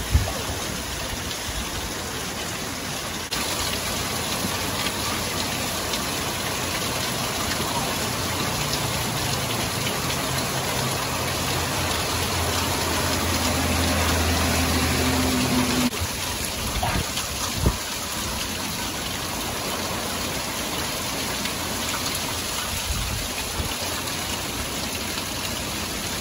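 Heavy wind-driven rain pouring down in a steady hiss, with water dripping off a roof edge close by. A low hum runs under the rain for several seconds in the middle and stops abruptly, with a single knock shortly after.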